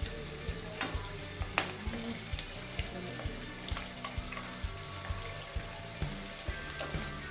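Breaded potato-vegetable cutlets deep-frying in hot oil in a kadai, a steady sizzle with crackling pops. A metal ladle clicks against the pan now and then as the cutlets are turned, over faint background music with a steady beat.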